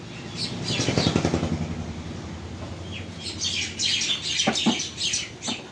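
Small birds chirping in quick repeated calls, with a small-engine motor vehicle passing, loudest about a second in and fading away.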